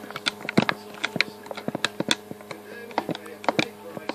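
Video game background music playing from a TV, a steady sustained plucked-instrument tune, with many sharp clicks, several a second, over it.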